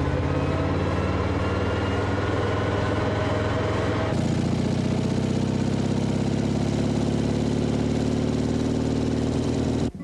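Motor vehicle engine running steadily, its pitch rising slowly over the first few seconds. The engine sound changes abruptly about four seconds in.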